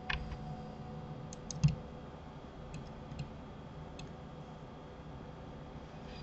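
A scattering of computer mouse and keyboard clicks, about six, the loudest a knock about one and a half seconds in, over a faint steady hum.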